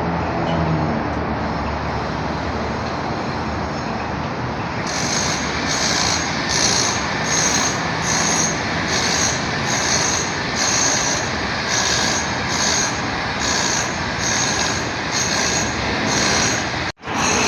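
Construction-site machinery noise with a steady rumble. About five seconds in, a rhythmic high metallic squeal begins and repeats roughly every 0.8 seconds. The sound cuts out briefly near the end.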